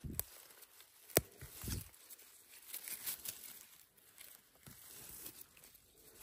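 Rustling and crinkling from a person moving through forest undergrowth while picking mushrooms, with a few soft low thumps and one sharp click about a second in.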